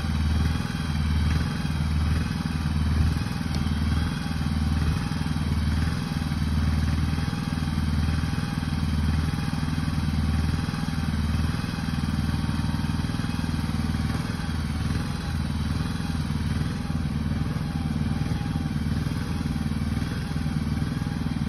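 Small engine running steadily under load, with a slow, pulsing low throb.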